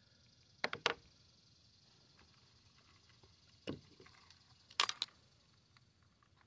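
Short clicks and knocks of fishing gear being handled in a kayak, a plastic fish lip-grip tool among it, in three brief clusters: about a second in, near the middle, and about five seconds in.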